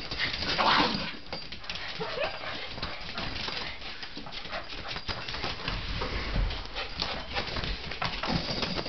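Several small dogs playing together on a tiled floor: claws clicking and scrabbling on the tile, with short dog whines and yelps. The loudest burst comes about a second in.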